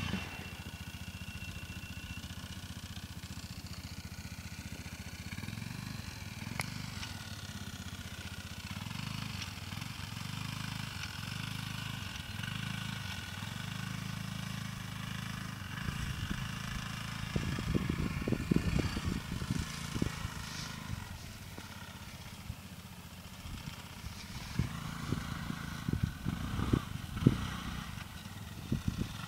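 Quad bike (ATV) engine running at a distance, a steady low drone that shifts slightly in pitch as it is ridden. Irregular low thumps come about two-thirds of the way through and again near the end.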